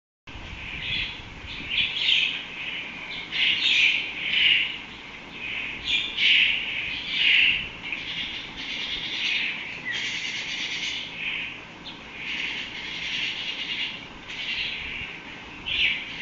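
Birds chirping and chattering in a string of short, high bursts, one after another with brief gaps.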